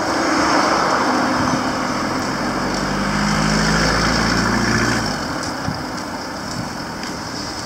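A motor vehicle passing close by on the road, its engine note loudest from about two to five seconds in, then fading away.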